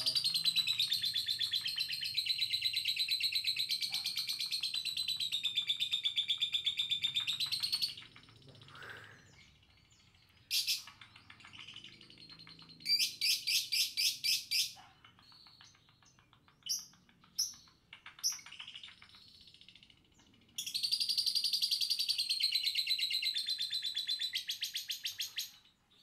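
Lovebird chattering in long, fast, high-pitched trills: one run of about eight seconds, a few short bursts in the middle, then another long run of about five seconds near the end.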